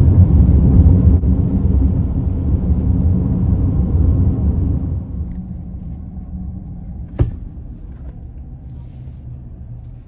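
Road and tyre noise heard inside a moving car's cabin: a steady low rumble that drops to a much quieter hum about five seconds in, with a single sharp click about seven seconds in.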